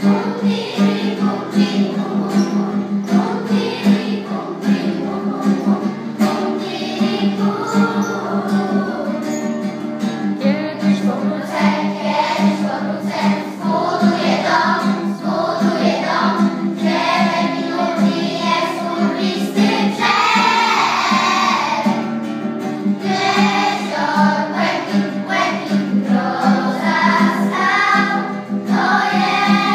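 A group of children singing a song together in Polish, accompanied by a strummed acoustic guitar.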